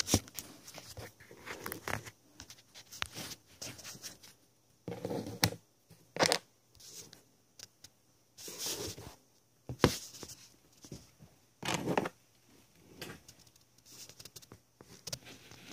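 Siamese cat hissing in repeated short bursts of about half a second to a second each, several times over, with quiet gaps between: a defensive warning aimed at a camera bag.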